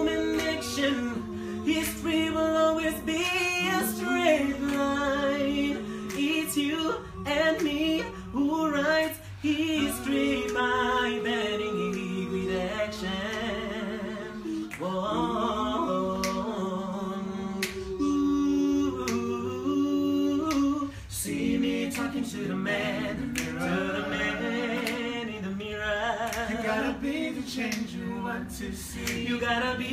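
A cappella vocal group of male and female voices singing a song in close harmony, several voices holding chords together, with short sharp clicks keeping the beat.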